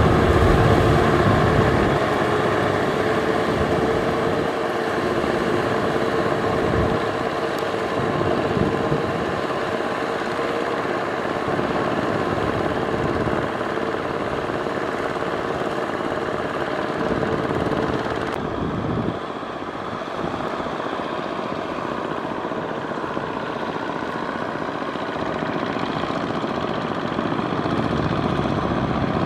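Kubota M6040SU tractors' diesel engines running steadily under load, pulling rotary tillers through wet paddy mud. The sound drops a little and loses some treble about two-thirds of the way through.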